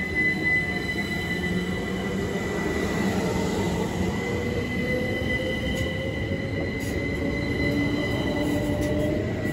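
Southeastern Class 377 Electrostar electric multiple unit moving off along the platform. Its traction motors whine, rising slowly in pitch as it gathers speed, over a steady high squeal and the rumble of the wheels on the rails.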